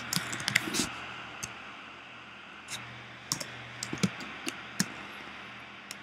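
Irregular clicking of a computer keyboard and mouse: a quick flurry of clicks in the first second, then scattered single clicks through the middle, over a low steady hum.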